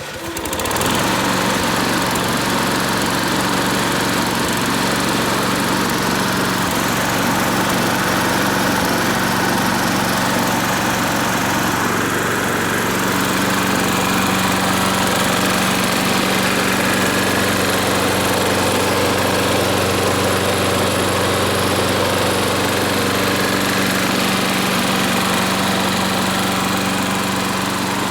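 Briggs & Stratton 6.75 horsepower flathead single-cylinder engine on a John Deere JS30 walk-behind mower, cold-started after sitting for about a week. It catches within the first second and then runs at a steady speed.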